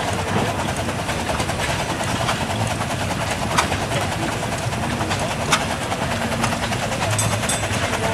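Case steam traction engine running while standing still: a steady mechanical noise, with two sharp clicks about three and a half and five and a half seconds in.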